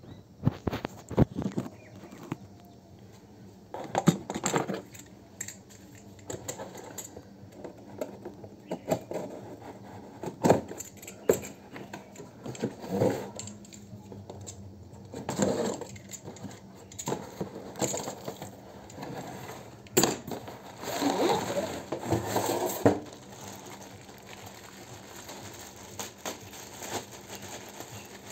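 Unboxing handling sounds: a cardboard box and a clear plastic bag being handled, with irregular knocks, scrapes and bursts of rustling and crinkling.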